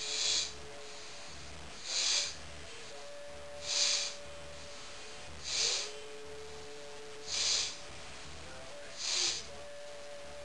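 Forceful exhalations of Kapalbhati pranayama breathing, the belly pumped in to push the air out through the nose: a short sharp puff about every two seconds, six in all.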